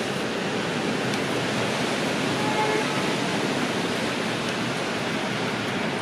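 Steady, even outdoor hiss with no distinct events.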